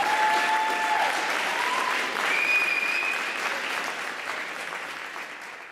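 Audience applauding and cheering, with a few whoops and a whistle in the first seconds, the applause dying away toward the end.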